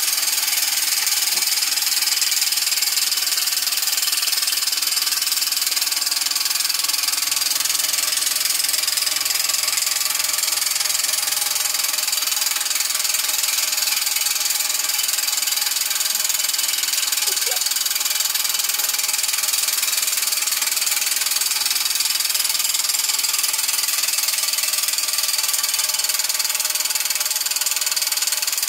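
Homemade oscillating-cylinder model steam engine running fast on live steam from its copper vertical boiler: a steady hiss of exhausting steam mixed with the engine's mechanical running.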